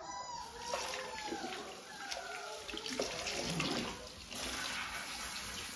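Water running from a kitchen pull-down sprayer faucet and splashing into the sink while a puppy is washed and rinsed. The rush of water grows brighter a little over four seconds in.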